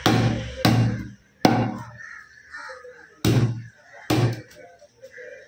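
A heavy curved fish-cutting knife chopping through a large fish onto a thick wooden block: about six hard chops, each with a dull thud from the block, irregularly spaced with a short pause in the middle.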